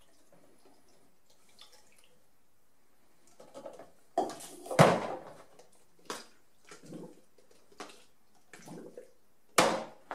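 Developer trickling faintly into a plastic film developing tank, followed by a series of plastic knocks and clatters as the measuring jug is set down and the tank's lid is fitted and pressed home, the loudest about halfway through and another near the end.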